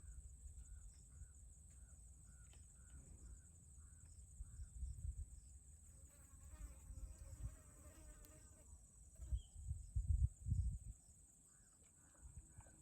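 Outdoor insect chorus: a steady high-pitched drone, with short chirps repeating a few times a second. A longer pitched animal call sounds about six seconds in, and low rumbles come and go, loudest about ten seconds in.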